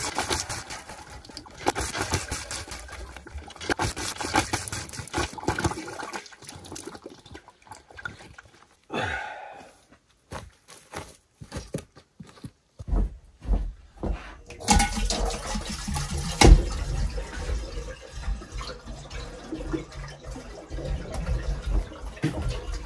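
Water gushing from a hand-operated well pump into a glass carboy, surging with each stroke of the handle. This gives way to scattered clicks and then a low rumble of handling, with one sharp knock about two-thirds of the way through.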